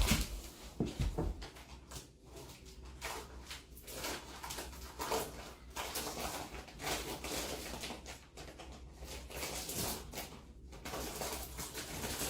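Irregular rustling and light knocks of handling, as a plastic vacuum storage bag's zip seal is worked over by hand; no vacuum cleaner is running.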